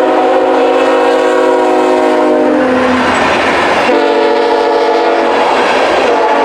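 Diesel locomotive's multi-chime air horn sounding a chord. One long blast ends a little before halfway, then after a short gap a second blast of about a second and a half follows, over the noise of the moving train.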